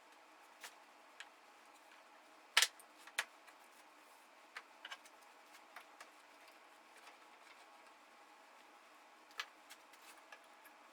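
Scattered light clicks and taps over faint room hiss, with a sharper knock about two and a half seconds in.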